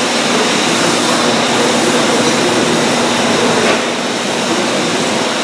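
Steady loud mechanical running noise with a faint low hum, a machine or fan running in the workshop.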